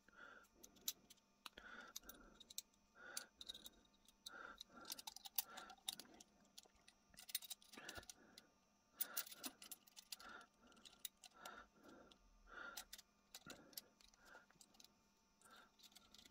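Faint, irregular small metallic clicks and clinks from an antique pistol's lock parts and locking pliers being handled and fitted together.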